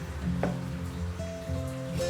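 Soft background music with held notes, and a short click about half a second in.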